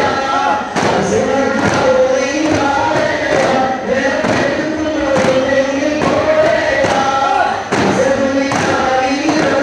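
Daff muttu: a group of male voices singing together in chorus over the repeated strikes of daf frame drums beaten in rhythm.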